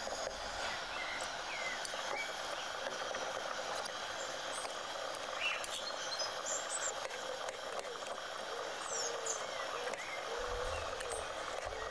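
Outdoor ambience: a steady hiss with short bird chirps scattered through it, and faint clicks of forks against a tray as cooked food is pulled apart.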